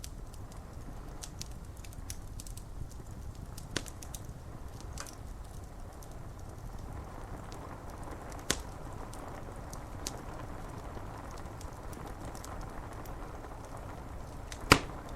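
Wood fire crackling, with scattered sharp pops, the loudest one near the end, over a steady hiss of rain.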